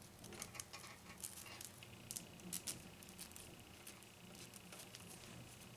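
Faint scratchy rustling and light clicks of PET braided sleeving being worked over a bundle of power supply wires by hand, busiest in the first few seconds. A faint steady high whine sounds underneath from about two seconds in.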